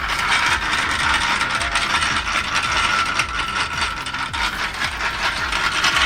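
Homemade mechanical wood splitter running, a dense rapid clatter of its gears and mechanism over a steady whine.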